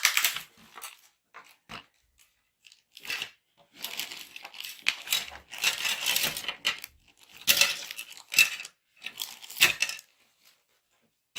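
Packaging being handled: irregular bursts of rustling and crinkling, with a few light clicks, going quiet near the end.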